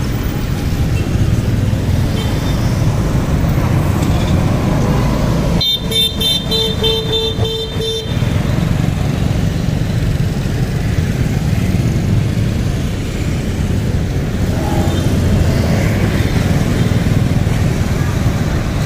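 Steady rumble of street traffic with motorbikes, and a vehicle horn beeping rapidly several times for about two seconds, starting about six seconds in.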